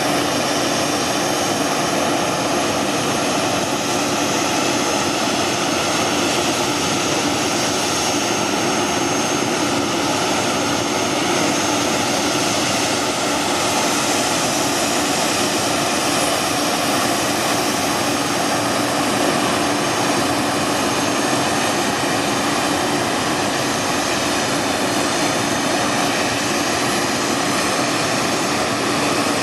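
Jet engines of a Boeing 737-800 (CFM56-7B turbofans) running at engine start: a loud, steady whine and rush, with a faint high whine rising in pitch partway through.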